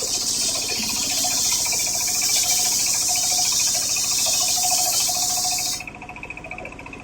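Homemade circular sawmill blade cutting through coconut-palm (glugu) timber, a dense hissing cut that ends suddenly about six seconds in. The saw's motor and blade keep running with a steady hum afterwards.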